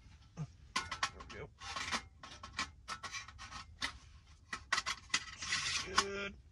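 A Pomoly folding sheet-metal wood stove being handled and fitted together: a run of metal clicks and knocks with scraping between them, the sharpest click near the end.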